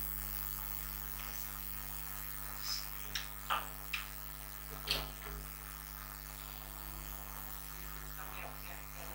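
Quiet room tone with a steady electrical mains hum, broken by a few faint short clicks and knocks about three to five seconds in.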